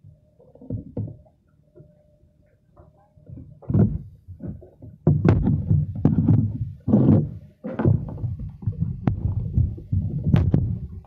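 Lake water sloshing and slapping against a floating wooden platform: irregular low gurgles and knocks, getting much louder about five seconds in.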